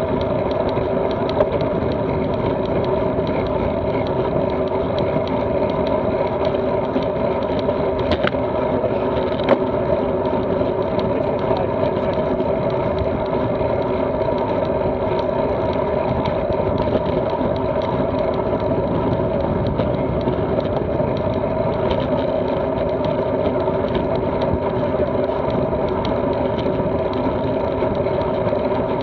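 Steady drone of wind and tyre noise from a bicycle riding along a gravel track, picked up by a bike-mounted camera, with two faint clicks about eight and nine and a half seconds in.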